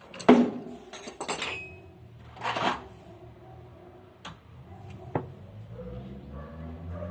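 Clattering knocks and scrapes of metal tools and parts being handled, with single sharp clicks about four and five seconds in. A low steady hum comes up over the last second or two.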